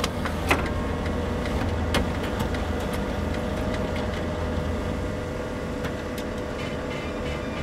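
Steady low rumble with an even noisy hiss, a few sharp clicks and a faint held tone.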